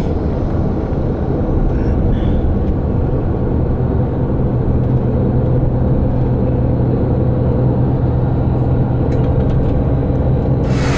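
Inside a moving coach bus: a steady engine drone with a low hum under continuous road noise.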